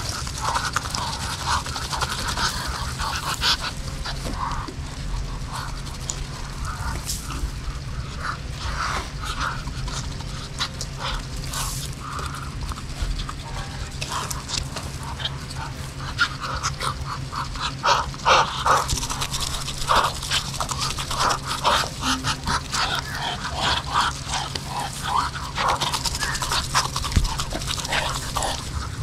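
Muscovy ducks eating, with many quick, sharp clicks and snaps of their bills at the food over a steady low background.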